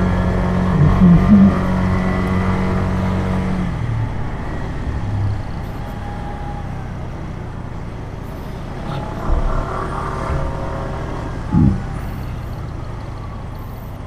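Motorcycle engine running steadily while riding in city traffic, its note clear for the first few seconds, then fading into road and traffic rush before coming back faintly.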